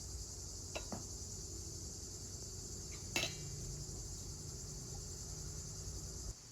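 Crickets chirring steadily in a high, even drone. A couple of light knocks come about a second in, and a sharper clink, the loudest sound, about three seconds in. The whole sound cuts off suddenly just before the end.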